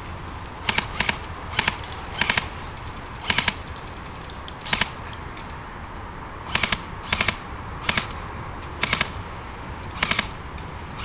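Airsoft rifle firing short bursts of two to four rapid shots, about ten bursts with pauses of half a second to over a second between them.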